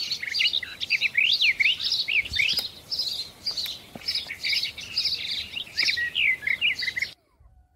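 Small birds chirping and twittering busily, with many quick rising and falling notes that start abruptly and cut off suddenly near the end.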